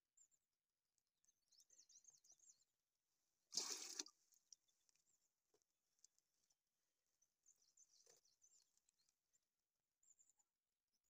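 Water being scooped by hand from a small stone-lined spring: faint dribbles and one short splash a little over three and a half seconds in.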